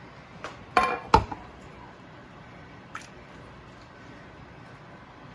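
Canned tomatoes being scooped or spooned out, with a few short wet squelches and knocks about a second in and a faint click near three seconds.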